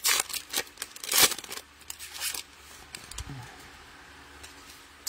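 Plastic trading-card pack wrapper crinkling and tearing as it is ripped open, in irregular bursts over the first two and a half seconds, then quieter handling with a sharp click near the end.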